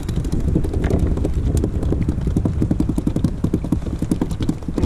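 Freshly caught mackerel flapping and thrashing against the plastic deck of a sit-on-top kayak, a rapid, irregular run of knocks and taps, several a second.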